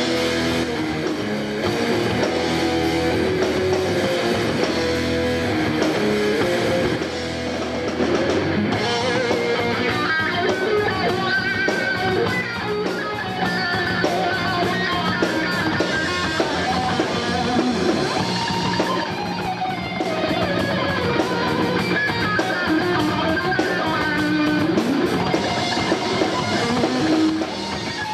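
Rock band playing: electric guitars over a drum kit, with cymbals keeping an even beat through much of it.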